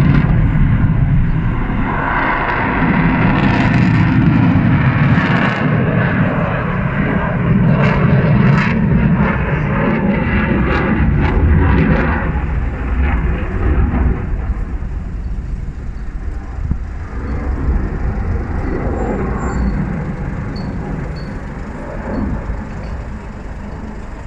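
Dassault Rafale fighter jet in flight, the engine noise of its twin turbofans loud for about the first half, then slowly fading as the jet draws away.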